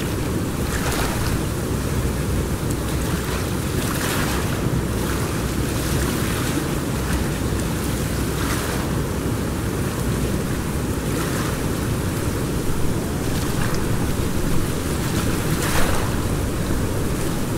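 Steady rush of river water with wind on the microphone, with brighter surges of splashing every few seconds.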